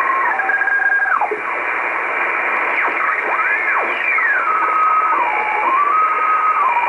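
Icom communications receiver in upper sideband being tuned across the 12 MHz shortwave utility band: hissy static with whistling carriers that glide and arc in pitch as the dial turns. It settles into a steady tone that steps up and down as the tuning is fine-adjusted onto an HF weather fax signal.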